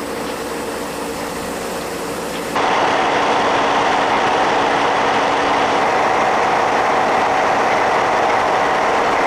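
DB class 215 diesel-hydraulic locomotive engine running at idle with a steady hum. About two and a half seconds in, the sound jumps to a louder, rougher running noise.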